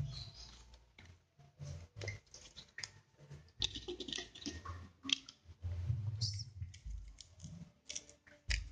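Banana leaf rustling and crinkling as it is folded into a parcel, mixed with light irregular clicks of wooden toothpicks being picked from a plastic plate. A dull knock sounds near the end.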